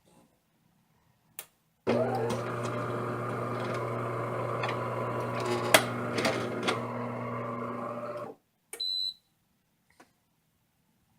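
DeLonghi Magnifica S bean-to-cup coffee machine running a cycle: a click, then about six seconds of steady motor hum with crackling and a few sharp clicks, which stops abruptly. A short high beep follows. The machine is showing the fault behind its "grounds too fine, adjust mill" error.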